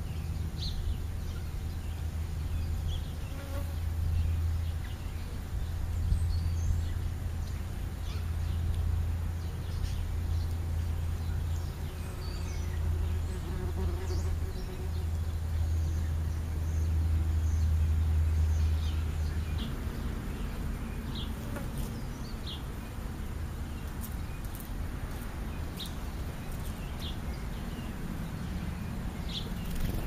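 A strong, steady low hum that stops about twenty seconds in, with scattered short high chirps of house sparrows, more of them near the end.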